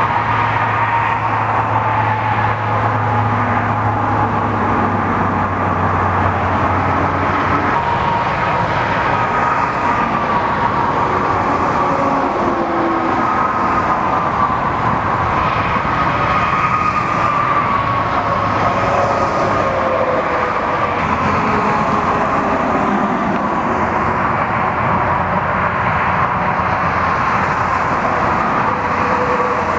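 Steady roar of road traffic and idling vehicle engines, with a low hum that stops about eight seconds in.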